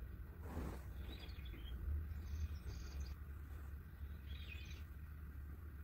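Faint birdsong: three short bursts of high chirping over a steady low hum.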